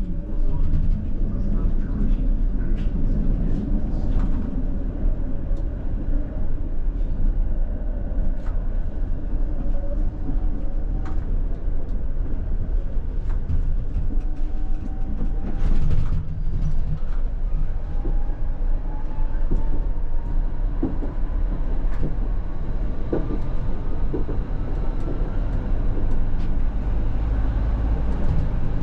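A two-car ČKD Tatra T6A5 tram set running along the track: a steady low rumble, with a faint whine that climbs slowly in pitch as the tram gathers speed. Scattered short clicks and knocks come from the wheels and rails.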